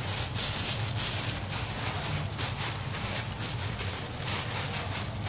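Disposable plastic gloves crinkling and rustling in quick irregular crackles as gloved hands squeeze and knead soft, sticky purple yam dough in a stainless steel bowl, over a steady low hum.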